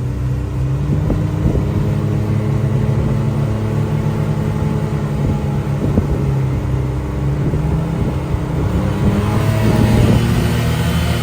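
Polaris RZR Pro R side-by-side engine running steadily while driving, with a few knocks from the machine or the terrain.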